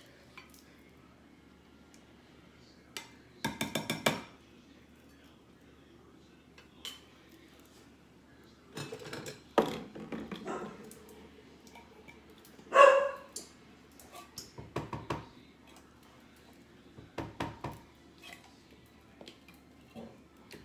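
Condensed cream of chicken soup being scraped out of its can into a ceramic bowl with a spatula: scattered scrapes, taps and clinks of utensil on can and bowl, with a quick run of clicks about three and a half seconds in. One short loud call cuts in about thirteen seconds in.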